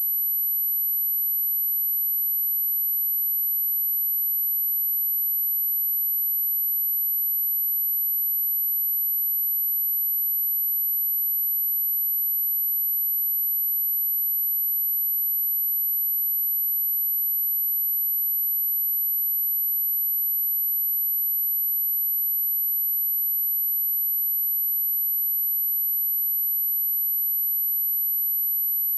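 A steady, continuous pure sine-wave test tone at 11824 Hz: a single very high, unchanging pitch.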